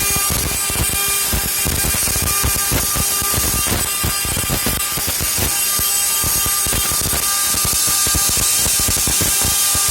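CNC stone-carving machine running: the spindle's cutting tool grinds into stone with a steady whine and a rapid, rough chatter, under a strong high hiss.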